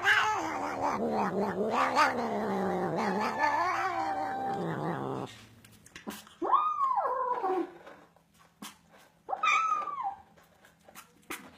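Domestic cat giving a long, drawn-out yowl that wavers up and down in pitch for about five seconds, then two shorter meows that fall in pitch.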